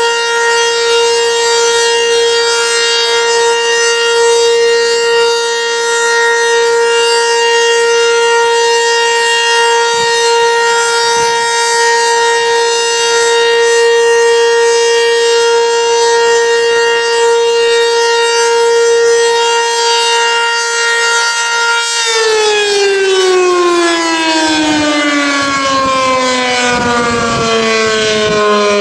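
ACA Banshee outdoor warning siren sounding a loud, steady tone during its weekly test, then winding down about 22 seconds in, its pitch falling smoothly.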